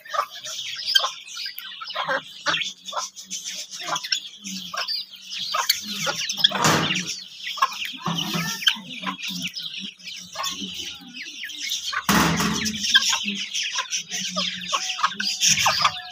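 A flock of hens clucking while pecking at scattered grain, with many quick taps of beaks on the ground. Twice there is a louder scuffle among the birds.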